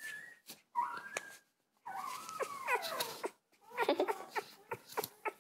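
Three-day-old newborn puppy squeaking and whimpering in a string of short, high-pitched cries that slide up and down in pitch, with faint clicks between them.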